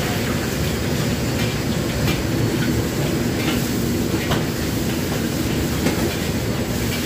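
Commercial wok range running with a steady low rumble of burner flame and extraction hood, with a metal ladle clinking against the wok a few times.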